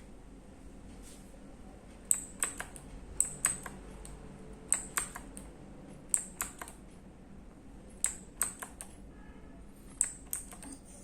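E-Yooso Z686 mechanical keyboard being typed on: short bursts of two to four sharp key clicks, about six bursts spaced a second or two apart.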